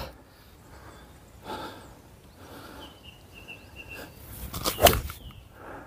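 An 8-iron striking a golf ball off a grass tee: one sharp click about three-quarters of the way through, with quiet outdoor background around it.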